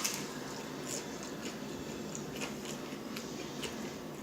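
Close-up eating sounds: chewing and biting fried food, with soft scattered crunches and mouth clicks.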